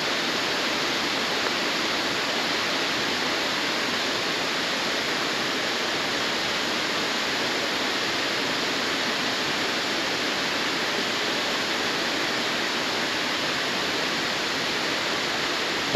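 Steady, even rush of water from a jungle river tumbling over rocks toward a waterfall.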